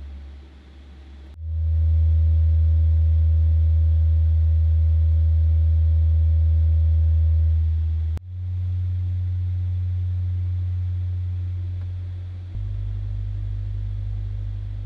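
Steady low bass sine test tones played through JL Audio 10TW3 shallow-mount 10-inch subwoofers for an SPL reading. The tone switches sharply about 1.5 s in, again near 8 s and again around 12.5 s, stepping up in pitch through roughly 80, 90 and 100 Hz.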